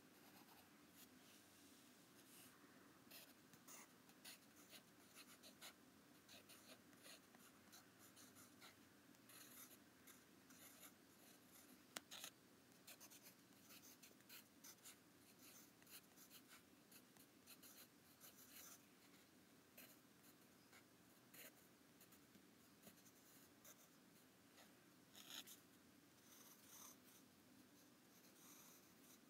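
Faint scratching of a yellow wooden pencil on lined notebook paper, in many short, irregular strokes as it draws and writes. A single sharp tick about twelve seconds in.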